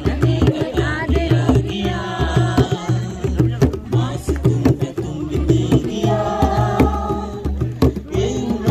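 Music: a voice singing over a steady drum beat.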